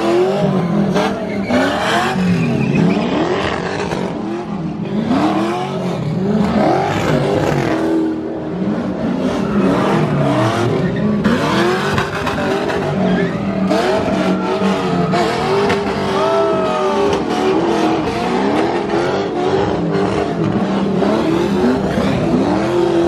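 Cars doing donuts and burnouts: engines revving up and down again and again over continuous tyre squeal.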